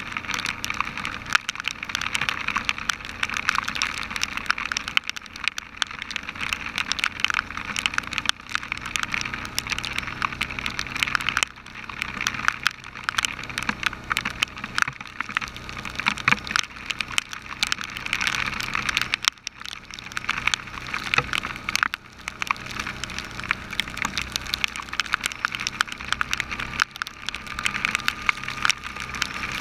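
Heavy rain pelting the camera housing as a dense, continuous crackle of drops, over the low steady running of the ATV's engine.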